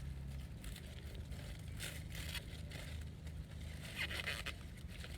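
Sweet corn husk and leaves being pulled open by hand to check the ear: dry rustling and tearing, in two short stretches about two and four seconds in, over a steady low hum.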